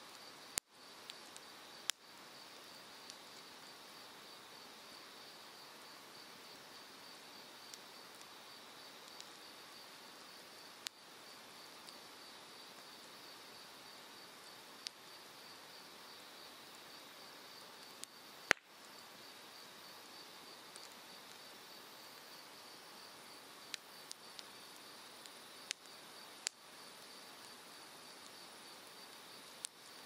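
Cedar firewood burning in an open fire pit, giving sharp pops and crackles every few seconds, the loudest about two-thirds of the way through. Under it runs the steady rush of a mountain stream and a continuous, pulsing trill of insects.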